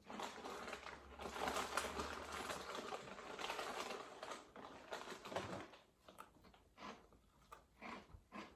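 Someone eating small puffed corn crisps: dense, continuous crunching and chewing for about the first six seconds, thinning to scattered soft crunches after that.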